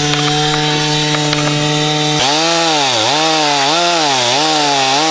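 Chainsaw engine running at high revs, then, from about two seconds in, its pitch dropping and recovering several times as the chain bites into the wood.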